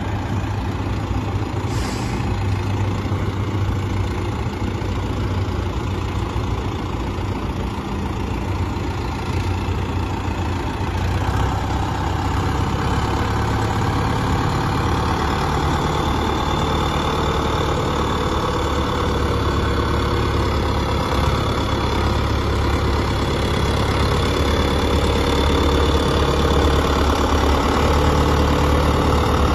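A 2002 John Deere 6420 tractor's diesel engine runs steadily as the tractor moves slowly. It grows somewhat louder about a third of the way in, and a faint high whine sits over it in the second half.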